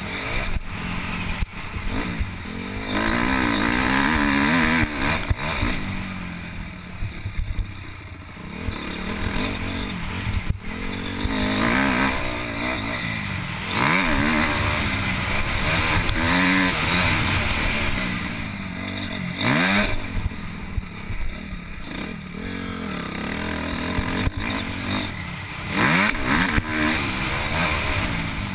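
Motocross bike engine heard from on board, revving up and rising in pitch, then backing off and picking up again many times over as the bike is ridden along a dirt track.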